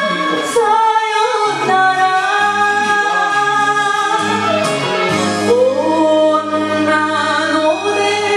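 A woman singing an enka song with held, wavering notes over a band accompaniment with a steady bass line.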